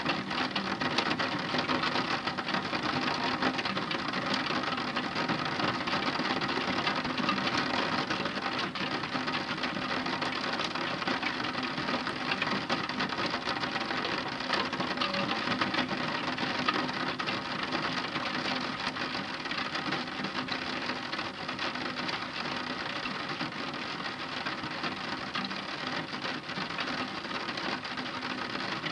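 Heavy rain falling steadily in a dense patter of drops.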